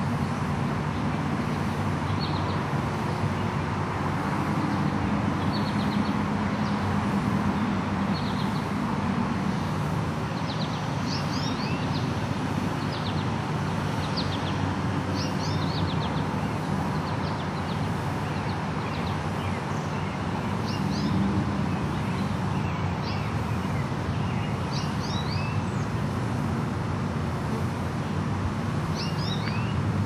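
Steady rumble of road traffic, with birds chirping over it in short, high notes that come in scattered clusters.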